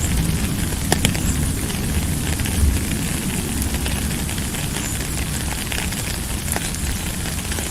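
Steady rain: an even hiss with scattered sharp drop ticks over a deep low rumble.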